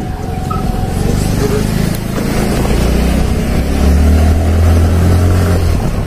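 Motorcycle engine running steadily, a low drone that grows louder about four seconds in and cuts off suddenly just before the end.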